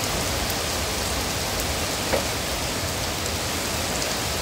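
Heavy rain falling steadily, an even hiss, with one faint click about two seconds in.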